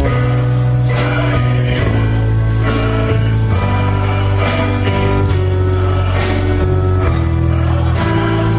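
Praise-band worship music: held chords over a strong bass line with a steady beat of about one stroke per second.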